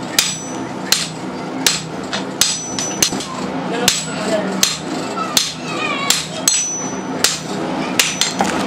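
Blacksmith's hand hammer striking metal on a small stump-mounted anvil, a steady stroke about every three-quarters of a second, a few strikes leaving a short high ring.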